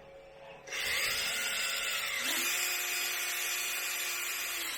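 Power drill with a countersink bit starting about a second in and running steadily while it cuts into a styrene plastic disc. Its motor whine steps up in pitch about two seconds in and dips slightly near the end.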